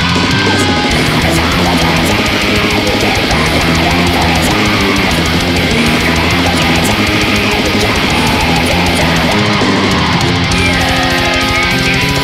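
Heavy metal band recording: distorted electric guitars and bass over fast, dense drumming.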